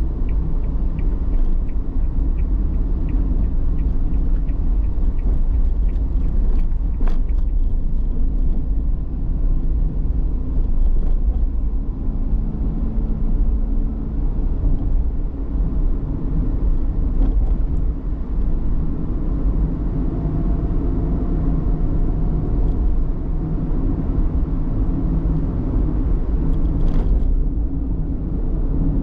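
A car driving steadily on a road: a constant low rumble of engine and tyre noise.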